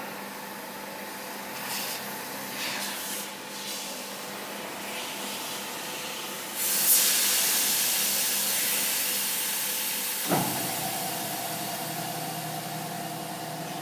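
A tyre building drum machine under test runs with a steady hum. About halfway through, a loud hiss of air starts suddenly and slowly fades. Near the end there is a sharp knock, and after it the hum settles at a different pitch.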